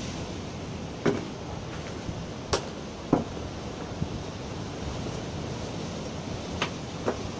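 Steady wind noise on the microphone, with several short sharp clicks or knocks scattered through.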